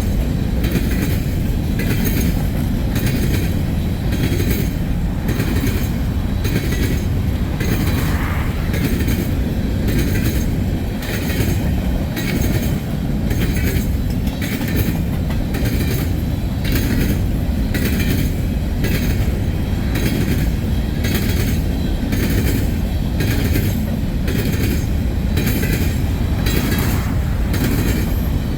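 Empty freight cars rolling past at speed: a steady low rumble with rhythmic clicking of the wheels over rail joints, about two clicks a second.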